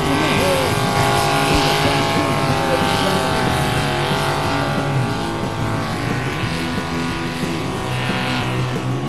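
Modified pulling tractor's engine running hard at high revs as it drags the weight sled down the track: a loud, steady, many-toned drone with slight wavering in pitch, easing off a little about halfway through.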